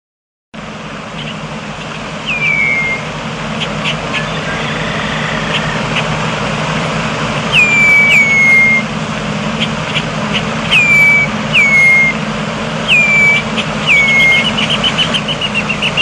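Red-winged blackbirds calling: a string of short whistled notes, each slurring sharply downward and then held briefly, about eight in all, mixed with short sharp check notes and a quick chattering run near the end. Under them runs a steady low hum.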